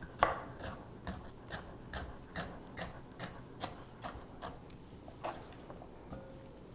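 Chef's knife slicing bok choy on a plastic cutting board: an even run of knocks as the blade meets the board, about two or three a second, which stops near the end.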